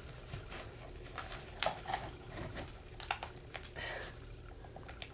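Plastic electrical outlet box being tilted and worked inside a wall opening: a few scattered light clicks and knocks with faint scraping and rustling as the plastic catches on the edges of the hole.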